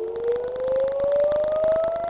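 Civil-defence air-raid siren sounding a rocket alert, its wail rising slowly in pitch, with a rapid crackle over it.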